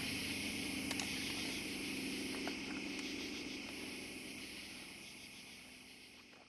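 Steady high chorus of night insects such as crickets, with a faint low drone beneath, fading out towards the end.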